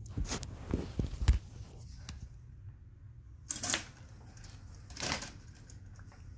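A smartphone being handled close to its microphone: rubbing and clicks through the first second, with a sharp thump just over a second in. Two short rushing noises follow, about three and a half and five seconds in.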